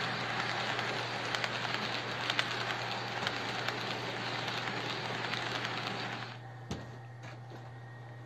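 OO gauge model container train running past on the track close by: a steady rolling rush with many small clicks from the wheels on the rails. It drops away suddenly about six seconds in, leaving only a faint background with a click or two.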